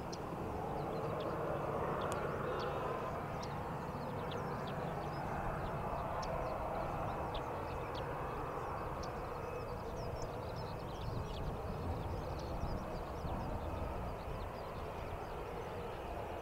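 Boeing 737-800's jet engines running, a steady faint rumble and hiss with many short, high chirps over it.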